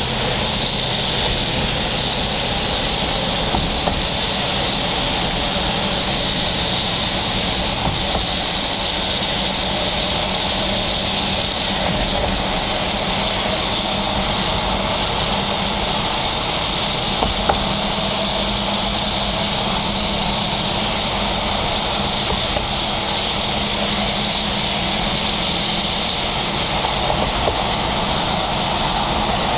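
Steady road noise inside a moving vehicle: engine hum under the rush of tyres on the road.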